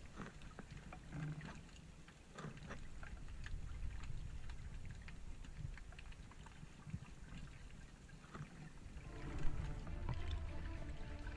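Underwater ambience: a steady low rumble of moving water with scattered clicks and crackles. Faint music comes in near the end.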